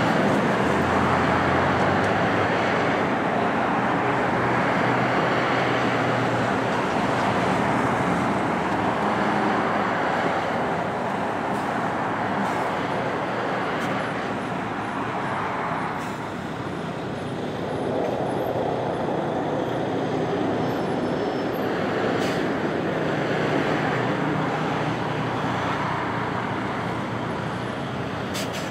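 Steady road-traffic noise, a continuous rush that dips briefly about two-thirds of the way through.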